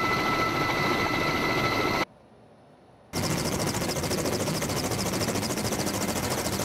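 Helicopter noise with two steady high whining tones, heard from the air, cutting off abruptly about two seconds in. After about a second of near silence, a Kamov Ka-27 helicopter's coaxial rotors run with a fast, even chop.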